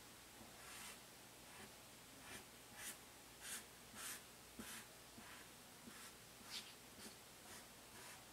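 Felt-tip marker drawing a long curve on paper: a run of faint scratchy strokes, about two a second.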